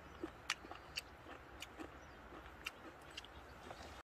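A person chewing a mouthful of food, quietly, with a few faint sharp clicks scattered through it.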